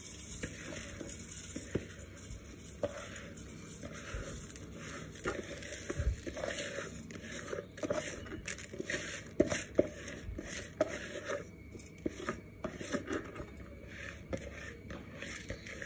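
Washed kaima rice being tipped from a plastic bowl into an aluminium pressure cooker, a hand scraping the grains out: irregular scrapes, patters of falling grains and light taps against the cooker.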